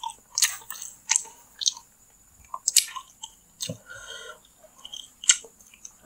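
Close-miked chewing and wet mouth smacks from eating chicken satay in peanut sauce, with sharp sticky clicks at irregular intervals.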